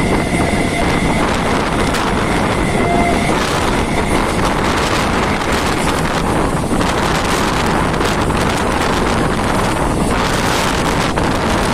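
Wind rushing over the microphone with the steady running noise of a moving Indian suburban electric train, heard from aboard. A faint high whine sits over it for the first few seconds.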